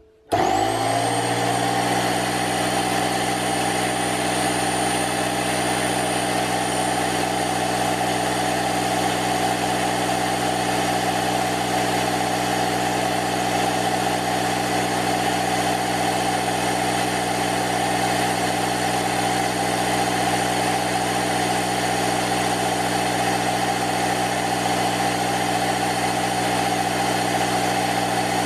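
Parkside PKZ 180 C5 piston air compressor, a tankless 1100 W electric unit, switched on: its motor comes up to speed almost at once, then runs steadily with a constant pitched drone as it pumps into its closed hose and air gun.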